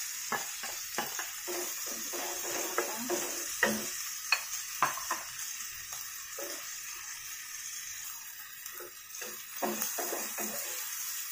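Nasi goreng (fried rice) sizzling in a hot nonstick frying pan as a wooden spatula stirs and scrapes it, with irregular knocks of the spatula against the pan, loudest a few seconds in and again near the end.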